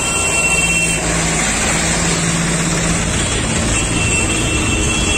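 Diesel tractor engines running steadily at close range, over the mixed noise of heavy traffic.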